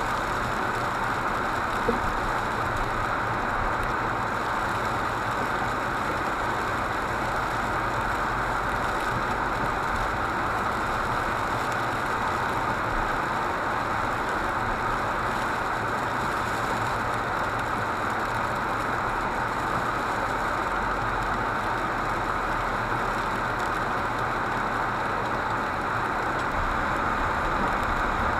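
Steady running noise of a car on the move, heard from inside the cabin: engine and road noise with a low rumble, and one brief click about two seconds in.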